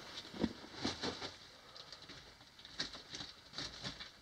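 Footsteps crunching and scuffing over loose rock rubble, with small stones knocking against each other at irregular moments. The strongest steps come in the first second or so, then lighter scrapes.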